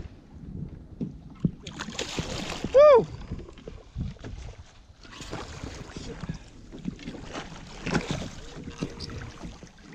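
Seawater slapping and splashing around a fishing kayak, with wind on the microphone and small knocks against the hull. About three seconds in, a short high-pitched call rises and falls, the loudest sound.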